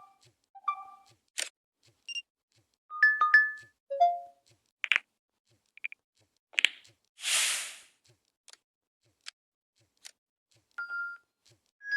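A string of short LG smartphone system sounds played one after another: brief two-note beeps and blips, sharp clicks, and a short whoosh about seven seconds in. The loudest are the two-note beeps about three seconds in.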